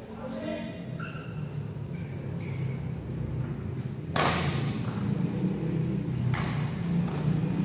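Badminton rackets striking a shuttlecock twice in a rally, sharp hits about two seconds apart, the first the louder, over a steady low hum of the hall.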